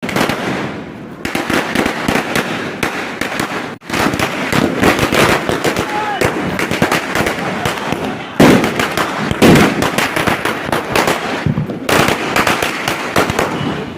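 Firecrackers going off in a rapid, dense crackle of bangs, with a brief gap near four seconds and two louder bangs about eight and a half and nine and a half seconds in.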